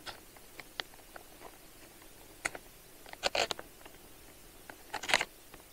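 A spoon stirring rice in a cooking pot: a few light taps against the pot and two short scraping rustles, about three and a half and five seconds in.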